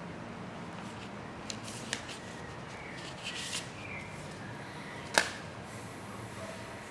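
Steady low background hiss with a few faint clicks, and one sharp click about five seconds in.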